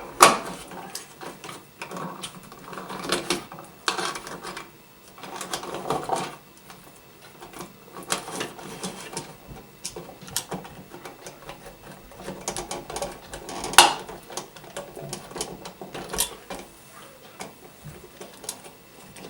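Irregular clicks, scrapes and rattles of a timer switch and its wires being handled and pushed back into a wall electrical box, with one sharp click about fourteen seconds in.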